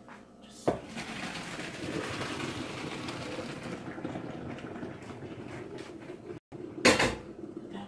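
Hot pasta water poured from a pot, lid held on, into a kitchen sink to drain cooked elbow macaroni: a rushing splash that tapers off after about three seconds. There is a knock as the pouring starts, and a louder knock of the pot near the end.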